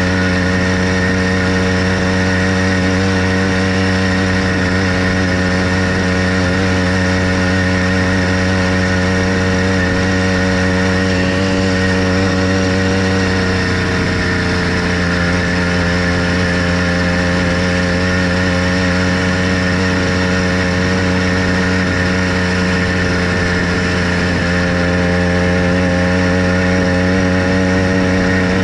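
Motorized bicycle's small kit engine running steadily under way at an even speed, easing off briefly about halfway through.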